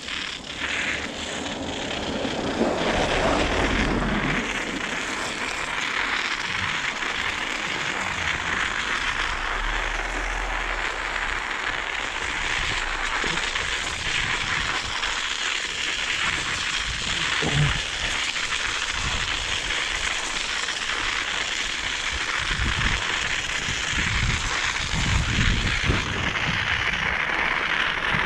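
Steady rushing noise of riding a bicycle on a winter road, tyres and moving air, with irregular low thumps in the second half.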